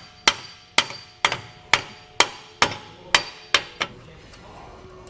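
A hammer strikes a metal suspension bracket about nine times, roughly two blows a second, knocking it into line with the brake bracket's bolt holes. The blows stop a little before four seconds in.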